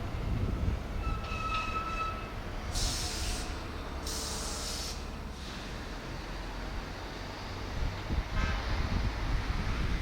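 Keihan electric train: a low steady rumble, a brief high tone about a second and a half in, and two short bursts of hiss around three and four seconds in.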